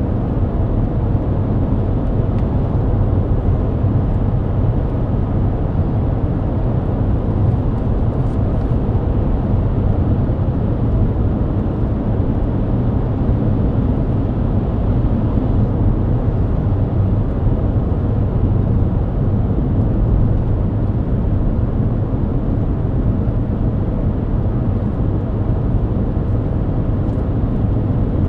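Mercedes-Benz W124 at steady highway speed, heard from inside the cabin: an even, low drone of engine, tyres and road noise.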